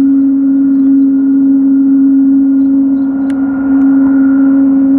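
Boeing 777-200 jet engines at takeoff power as the airliner starts its takeoff roll: a loud, steady drone with one strong unchanging low tone. A brief click comes about three seconds in.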